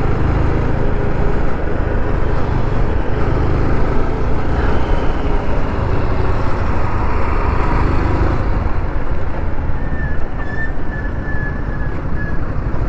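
Motorcycle riding at speed: steady wind rush over the camera's microphone with the engine running underneath.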